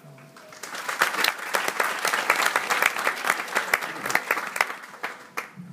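Theatre audience applauding, building up about a second in and dying away near the end.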